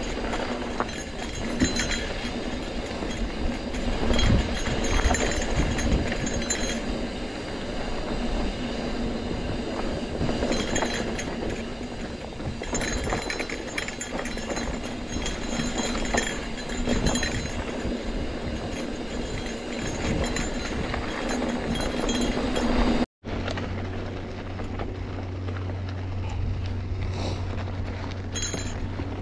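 Trek Roscoe 8 hardtail mountain bike ridden over a rough dirt trail: rolling tyre noise with irregular knocks and rattles from the bike. About 23 seconds in the sound breaks off abruptly and gives way to a steadier noise with a low hum.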